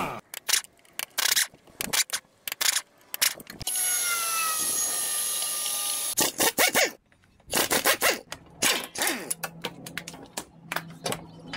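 Impact wrench running in many short bursts on the frame bolts. In the middle, a two-post car lift's motor runs steadily for about two and a half seconds, with a whine that falls slightly in pitch.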